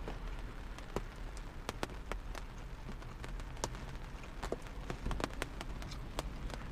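Raindrops hitting a car's roof and windows, heard inside the cabin as scattered, irregular ticks over a low steady hum.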